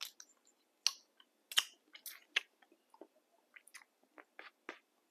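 A person eating crab: an irregular scatter of sharp cracks and clicks from biting and chewing the crab, with the loudest cracks in the first two and a half seconds and softer clicks after.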